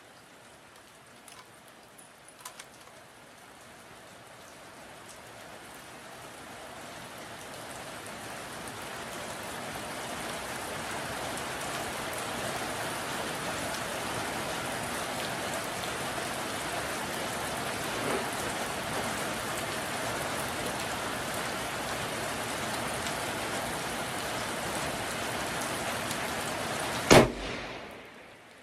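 Steady rain hiss that grows louder over the first ten seconds or so, with a few faint clicks about two seconds in. Near the end a single loud rifle shot from a 6.5 Creedmoor Seekins Havak bolt-action rifle.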